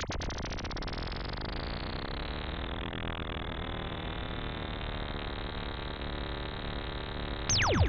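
Synthesized electronic sound effect: a dense wash of many tones with a low hum underneath, whose top slides downward over the first three seconds and then holds steady.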